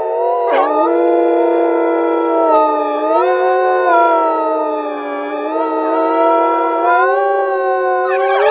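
Wolf howling: one long, unbroken howl with more than one voice overlapping, holding a nearly steady pitch with small wavers.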